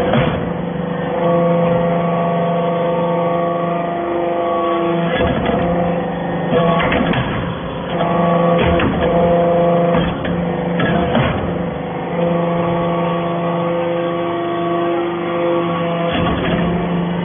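Vertical hydraulic aluminium scrap baler running: a steady hum from its hydraulic pump and motor, with sharp metal clanks every few seconds as the scrap is handled and pressed.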